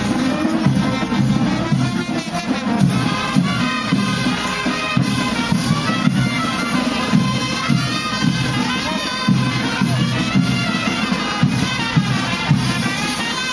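Brass band playing a lively dance tune with trumpets and trombones over a steady beat.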